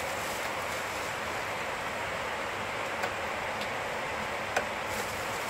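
Steady rush of air noise on an Airbus A330 flight deck at cruise, with a few sharp clicks from the MCDU keypad's keys being pressed, the loudest about four and a half seconds in.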